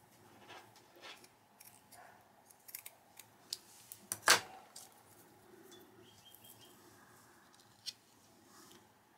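Scissors snipping through mesh netting: a series of small clicks and snips, the sharpest about four seconds in, followed by faint rustling as the netting is handled.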